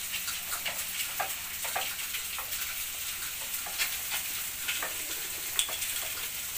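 Sisig frying in a nonstick pan: a steady sizzle with irregular light scrapes and taps as a slotted spatula stirs and turns the meat.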